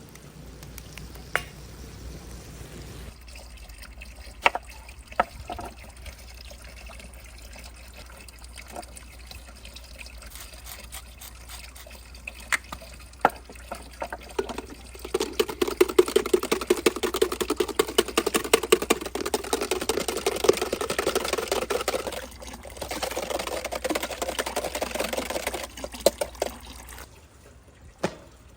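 Wet, crackling liquid sounds from a saç pan of beef sauté. A few sharp knocks come first; about halfway in the crackle starts, pauses briefly, resumes, and stops near the end.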